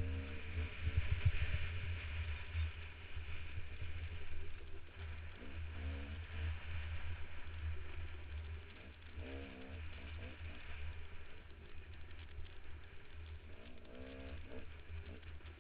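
Dirt bike engine under load on a steep climb, its revs rising and falling several times, heard from a helmet-mounted camera with a heavy low rumble of wind buffeting the microphone.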